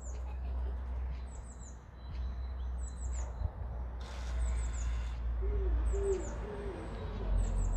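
Garden birdsong: a small bird repeats a phrase of two or three short, high, falling chirps about every second and a half, and a few low cooing notes come in about five and a half seconds in, over a steady low rumble.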